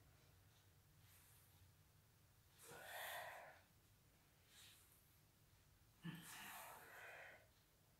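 A person breathing out heavily twice while holding a floor exercise, the breaths about three seconds apart, with faint room tone between.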